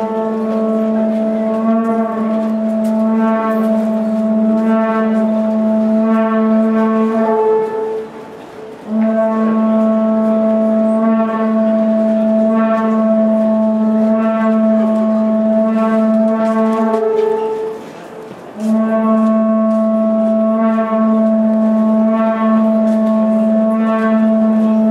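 Two Japanese conch-shell trumpets (horagai) blown in three long blasts of about seven to eight seconds each, with short breaks between. A low steady note is held under a higher note that wavers in and out about once a second.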